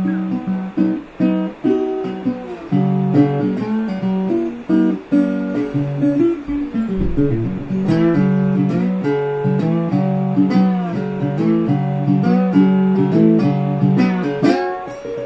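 Background music: acoustic guitar playing a picked melody with chords.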